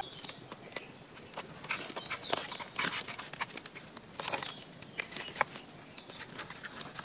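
Domestic goose pecking at and shoving a phone about on a nest of twigs and bark: scattered sharp taps and clicks of bill on phone, with twigs rustling and cracking.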